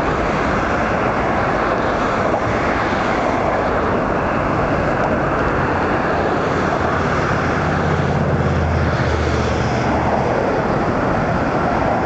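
Steady roar of road traffic on a bridge deck, with a deeper engine hum swelling from about seven to ten seconds in, as a heavy vehicle passes.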